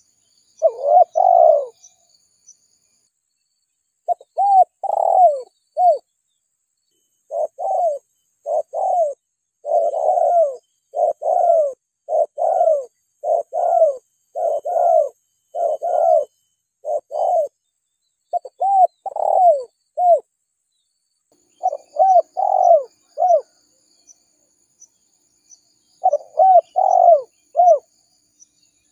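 Spotted dove cooing: runs of short, arched coo notes, almost continuous through the middle and broken by pauses of a second or two near the start and end. Faint high insect ticking sounds underneath.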